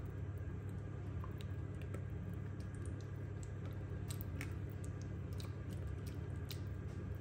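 Silicone spatula stirring a thick, wet spice marinade in a ceramic bowl: soft squishing with frequent small clicks and taps as the spatula scrapes the bowl, over a steady low hum.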